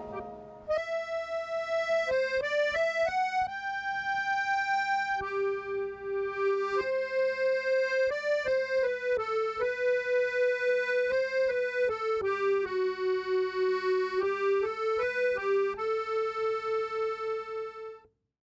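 Instrumental music: a slow solo melody played one note at a time on a reedy, accordion-like instrument, with a wavering pulse in its loudness and a faint low drone beneath. It stops shortly before the end.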